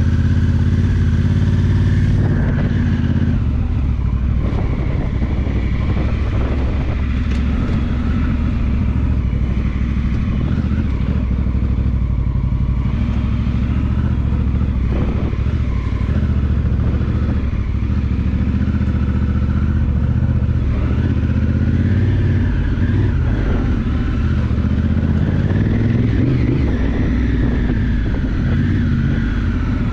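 Honda Africa Twin's 998 cc parallel-twin engine pulling along a rough dirt track, its pitch rising and falling with the throttle, with a few knocks from the bumps.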